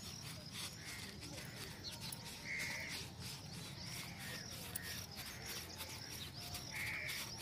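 Faint outdoor ambience with a few short animal calls: two clearer ones, about two and a half seconds in and near the end, and a fainter one about a second in.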